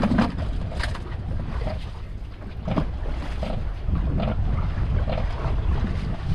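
Wind buffeting the microphone over water slapping around a small wooden fishing boat at sea: a steady low rumble with a few light knocks or splashes.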